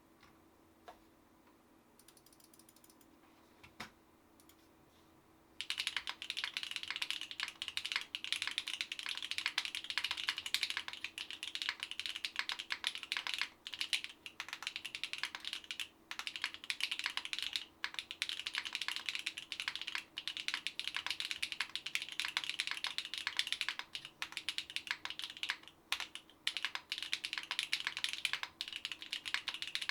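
Typing on a SINGAKBD Kohaku R2 mechanical keyboard with Gateron Type R switches, a polypropylene plate and GMK keycaps. A couple of single key clicks come first, then fast continuous typing starts about five and a half seconds in.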